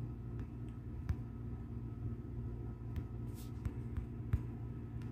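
Nikai electric kettle heating water: a steady low rumble and hum with a few scattered light ticks and a brief hiss.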